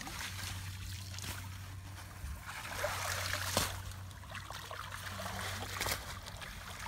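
Shallow water splashing and trickling as a net is pulled and lifted through it by hand, with louder splashes about three seconds in and again near the end.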